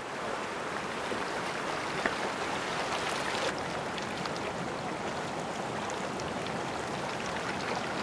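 Creek water carrying a slurry of frazil ice, rushing steadily, with scattered small ticks.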